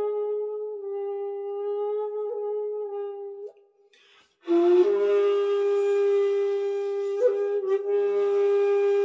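2.6-shaku jinashi wide-bore shakuhachi in G# playing slow, long-held notes. One note is held and fades out about three and a half seconds in. After a short pause for breath, a new breathy note starts sharply and is held to the end, with a small ornamental flick about seven seconds in.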